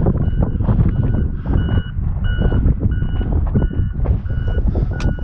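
Strong wind buffeting the microphone, with a short, high electronic beep repeating about twice a second at one steady pitch.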